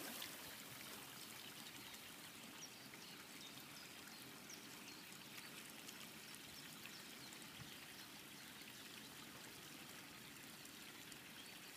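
Near silence: a faint, steady, even hiss of outdoor background, with a few tiny faint high chirps scattered through it.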